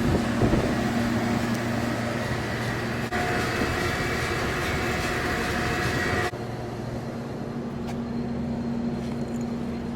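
Steady mechanical running noise with a low hum, changing abruptly about three seconds in and again about six seconds in.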